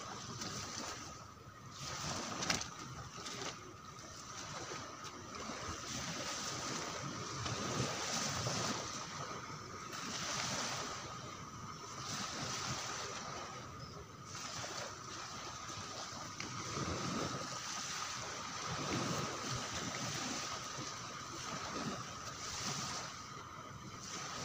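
Sea surf washing onto a beach, the noise swelling and falling back every second or two, with a thin steady high tone running under it.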